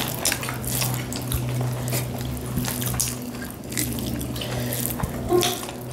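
Wet eating sounds of people eating rice and curry with their hands: irregular smacking, squelching clicks of chewing and of fingers mixing food on plates, over a steady low hum.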